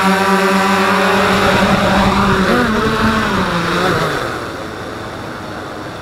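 Electric motors and spinning rotors of a small home-built flying machine running with a steady hum, then wavering and falling in pitch as they spin down, dying away about four seconds in.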